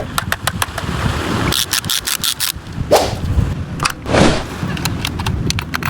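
Remote-control toy excavator working: a low motor rumble under a string of sharp, irregular clicks and knocks, with two short swishing scrapes about three and four seconds in.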